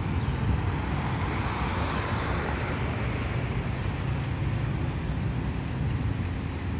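Freight train cars rolling past: a steady rumble of wheels on rail, mixed with the noise of road traffic.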